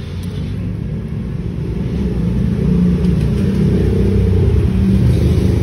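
Steady low road rumble inside a moving car's cabin, growing louder about two seconds in.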